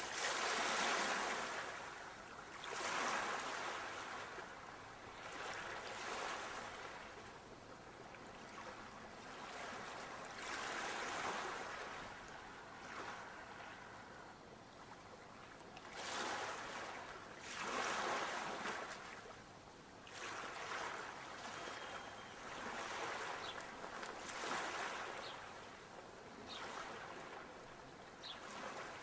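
Sea waves breaking and washing on a shore, surging and drawing back in swells every few seconds, the strongest near the start and again about halfway through.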